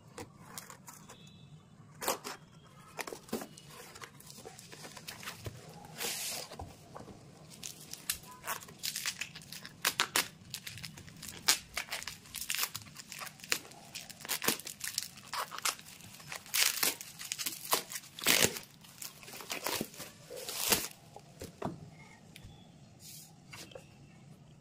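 A knife slitting a cardboard parcel and then cutting and tearing foam-sheet and plastic packaging, with crinkling and rustling of the wrap. A rapid, irregular series of sharp rips and scrapes, busiest through the middle and thinning out near the end.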